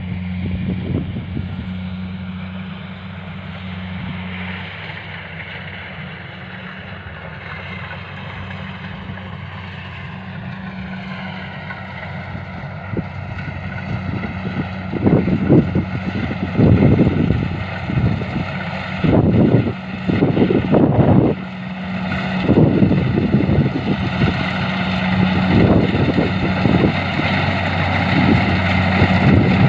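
A machine engine running steadily with a constant hum. Its higher tones shift in pitch about midway, and wind buffets the microphone in gusts through the second half.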